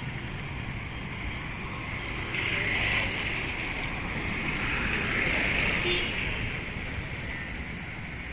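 Street traffic noise, swelling louder twice, about two and a half and five seconds in, as vehicles pass close by.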